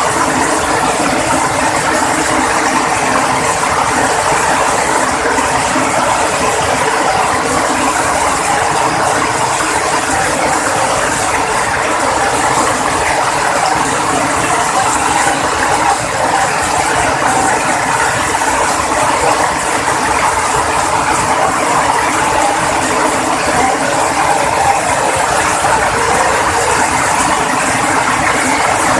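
Heavy rain falling, a steady dense patter without let-up.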